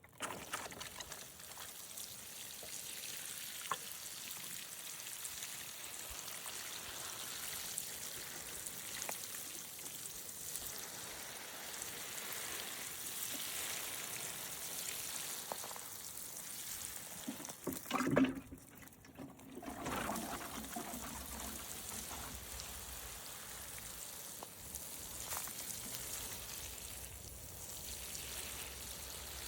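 Water pouring from a garden watering can onto plants, a steady trickling patter. About two-thirds of the way through there is one brief louder sound, then the flow falters for about a second before it resumes.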